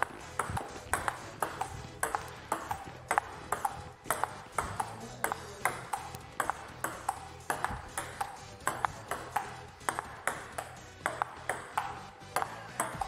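Table tennis rally: a ping-pong ball clicking off the paddles and bouncing on the table in a steady, even rhythm, two or three clicks a second, kept up without a break.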